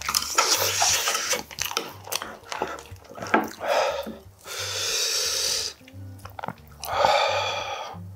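Close-miked eating sounds: chewing with small utensil clicks for the first few seconds, then three long, loud breaths or slurps through the mouth, around the middle and again near the end.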